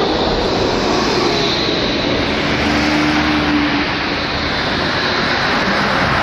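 Tram and street traffic running: a steady rumble and hiss, with a brief faint hum near the middle, as a tram rolls past close by.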